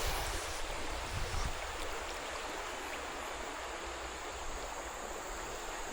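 River water flowing and rushing steadily, with a few soft low thumps in the first second or so.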